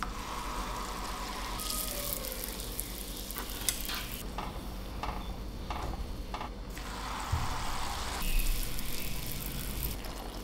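Corn dogs, sausages in cornmeal batter, deep-frying in a pot of hot oil: a steady sizzle and crackle that swells and eases, with a few sharp clicks around the middle.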